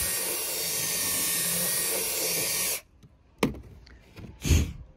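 Cordless drill spinning a rotary burr bit, grinding the fractured gelcoat around a screw hole in a fiberglass deck to flare its edge. It stops suddenly about three seconds in, followed by two knocks.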